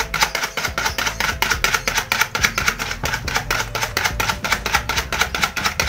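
A fork beating two eggs with vanilla powder in a plastic bowl by hand, clicking rapidly and regularly against the bowl as the eggs are whipped until foamy with small bubbles.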